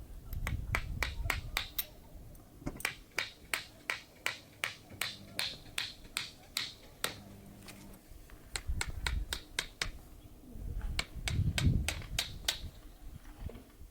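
A rapid series of sharp taps or clicks, about three a second, pausing twice, with low rumbling at times.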